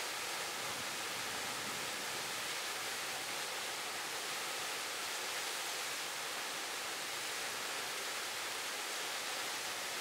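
Waterfall: a steady rush of falling water, an even hiss that does not change.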